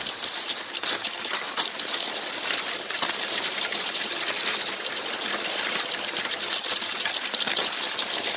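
Cross-country skiing on a packed snow track: a steady hiss and scrape of movement over the snow with many small crunches and clicks.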